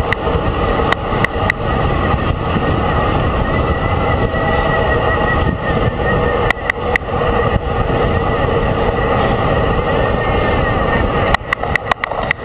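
A road vehicle running steadily at speed, with heavy wind rumble on the microphone and sharp clicks here and there, several in a row near the end.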